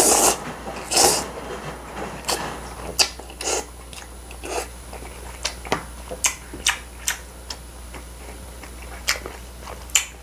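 A person slurping jjapaguri noodles, two long slurps in the first second or so, then chewing with the mouth open, giving many short, irregular wet smacking clicks.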